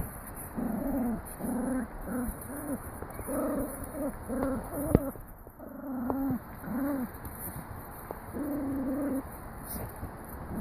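An animal's voice making a series of about a dozen short, low hooting calls, each rising and falling in pitch, with a longer call near the end.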